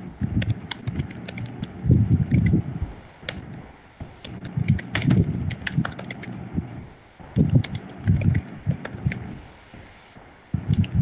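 Computer keyboard typing in short bursts of clattering keystrokes with brief pauses between them.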